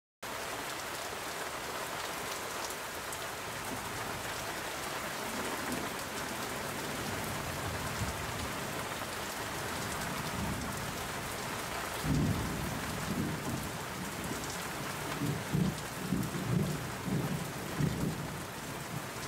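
Steady heavy rain that cuts in abruptly, with low thunder rumbling and rolling in repeated surges from about twelve seconds in.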